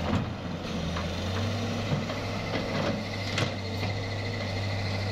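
Wheeled hydraulic excavator's diesel engine running steadily as it digs, with a few sharp knocks as the bucket works the stony soil.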